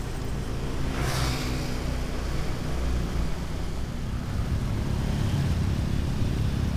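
Motorcycle engine running steadily at cruising speed, heard from the bike itself with wind and road noise. About a second in, a brief rushing sound swells and fades.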